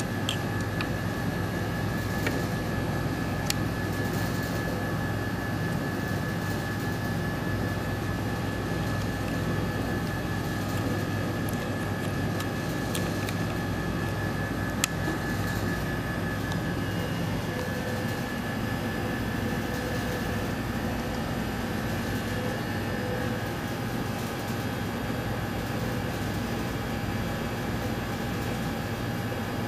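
Steady machine drone of laboratory equipment cooling fans and ventilation, with low hum and a faint high whine, broken by a few light clicks.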